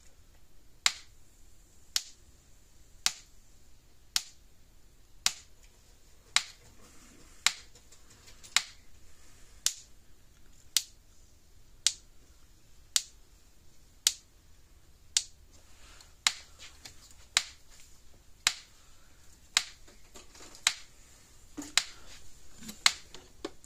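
Gallagher BEV2 electric fence energizer pulsing, a loud sharp click about once a second. The clicking comes from its transformer, whose exposed metal plates are not fully encased in epoxy. It is the sign that the energizer is firing and working.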